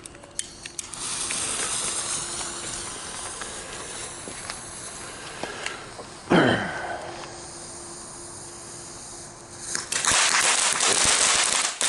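A small F1 youth-firework fountain, a Weco Blue Star fountain, catches about ten seconds in and sprays sparks with a loud, dense crackling hiss. Before it catches there is a fainter steady hiss, and about six seconds in a brief loud sound that falls in pitch.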